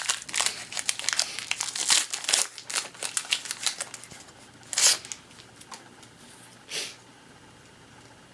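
Foil wrapper of a baseball card pack being torn open and crinkled, a dense crackling that dies down after about four seconds. Two brief, louder rustles follow, about five and seven seconds in.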